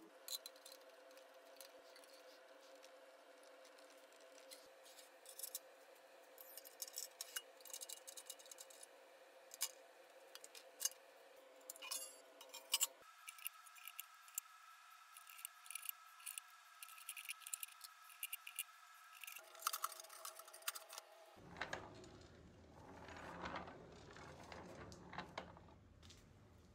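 Faint, quick clicks and clinks of a steel pizza oven's parts being handled (its wire rack, door and latch), scattered irregularly over a faint steady hum.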